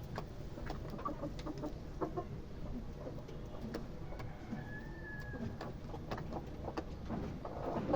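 Chickens clucking quietly, with scattered short sounds over a low background hum and one faint, high, drawn-out note about halfway through.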